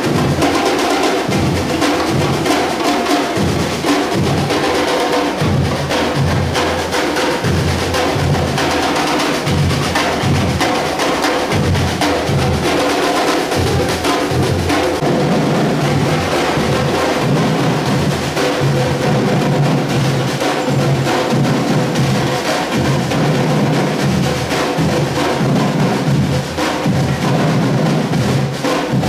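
Brazilian batuque drumming group playing a continuous groove: deep bass drums beating a rhythm under a dense clatter of snares and other sharp percussion.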